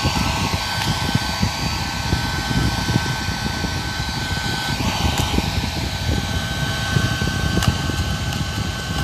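Hand-held hair dryer blowing steadily: a constant motor whine over rushing air with a low, fluttering rumble.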